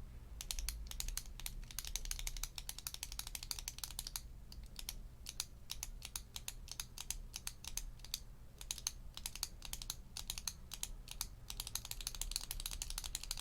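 Retractable click pen clicked rapidly and repeatedly close to the microphone, in quick runs of sharp clicks with short breaks between them.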